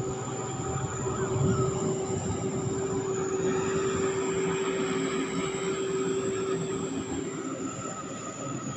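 Sakpattana SS-300 combine harvester running steadily under load while harvesting. A high turbo whistle sits over the engine and threshing noise.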